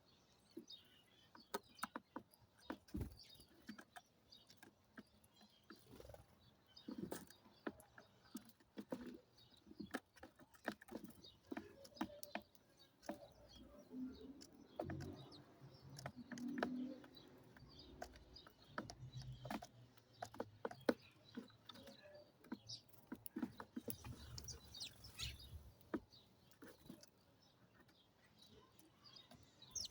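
Faint bird chirps over many irregular sharp clicks and taps, with a low rumble through the middle stretch.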